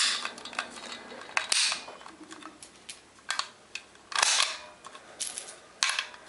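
Cartridges being pressed one at a time into a metal AR-15 magazine: a series of sharp metallic clicks and short rattles about a second apart, as each .223 round snaps down under the feed lips. The loudest click comes about four seconds in.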